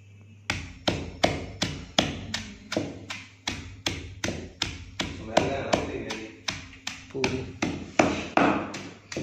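Wooden pestle pounding mint, green chilli and coriander leaves in a mortar for chutney: a steady run of thuds, about two and a half strokes a second, starting about half a second in.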